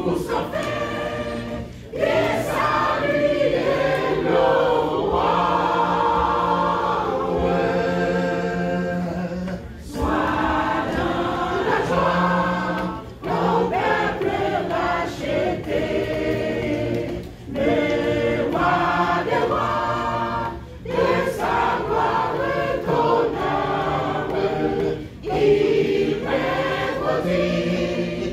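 Mass choir singing a French-language gospel song in sustained phrases a few seconds long, with brief breaks between them, over a steady low held note.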